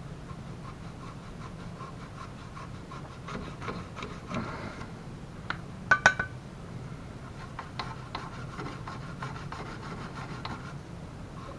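Hand work on small metal parts: scraping and rubbing, with a quick run of ringing metallic clinks about six seconds in.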